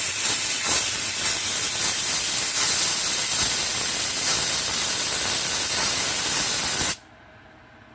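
Handheld steamer jetting steam in a steady hiss, thawing a frozen, clogged refrigerator defrost drain; it cuts off suddenly about seven seconds in.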